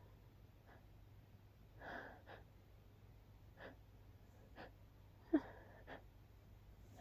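A person's soft, breathy gasps and sniffs during a tickly nose, with one short, sharp stifled sneeze about five seconds in.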